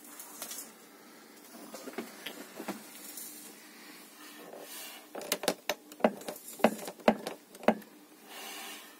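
Close handling noise: faint rustling and scraping, then a quick run of sharp clicks and knocks about five seconds in, and a short rustle near the end.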